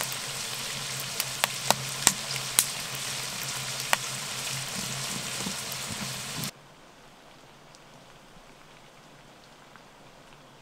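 Wood fire crackling in a tent stove (bukhari) with its door open: sharp pops over a steady hiss. It cuts off about six and a half seconds in to a faint, steady background.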